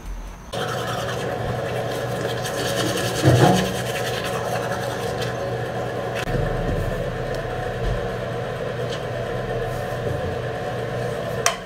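Electric toothbrush buzzing steadily while teeth are brushed, with a louder moment about three seconds in.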